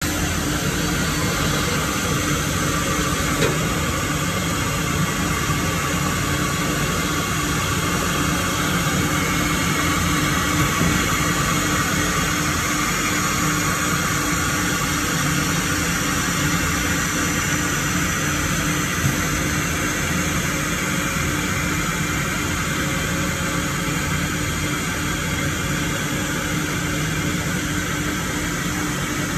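Four-head 1325 CNC wood router running under test: a steady, unbroken machine noise with a faint constant hum.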